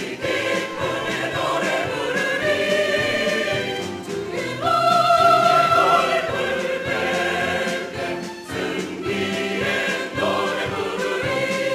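Mixed church choir singing a hymn in Korean, with a loud held chord about five seconds in.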